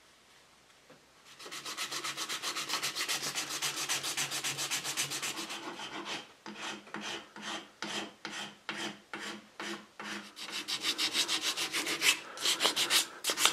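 Hand-sanding a putty-filled repair on a teak chair part, sandpaper stroked back and forth in quick rhythmic rubs. The strokes start about a second in, slow to about two a second in the middle, then speed up again near the end.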